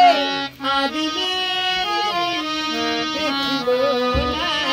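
Harmonium playing a melody of held reedy notes between sung lines, with a short break in the sound about half a second in. The singer's last note trails off right at the start.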